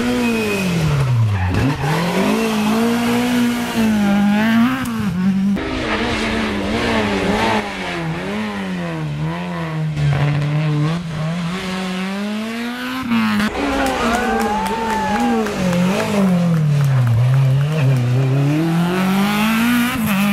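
Rally car engines revving hard as cars pass on a stage. The pitch drops and climbs again and again with gear changes and lifts, with abrupt cuts from one car's pass to the next.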